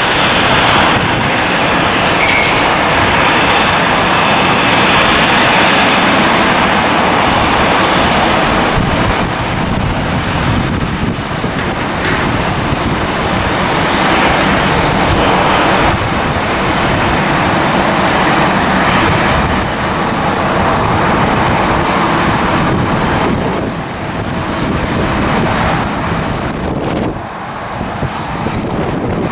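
Airliner engines at the airport, a loud, steady rushing noise that dips for a moment about 27 seconds in.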